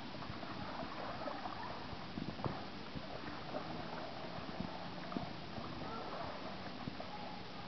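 Paddle strokes and water splashing and lapping close to the microphone: irregular light splashes and drips over a steady hiss.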